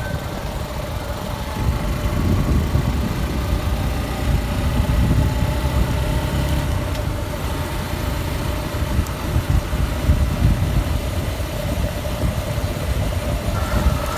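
Suzuki Gixxer SF 155's single-cylinder engine running steadily on the move, with a heavy low rumble over it.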